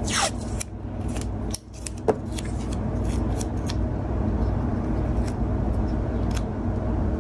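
Scissors cutting masking tape near the start, then scattered light clicks and taps as small pieces of tape are handled and pressed onto a small plastic model part. A steady low motor hum runs underneath.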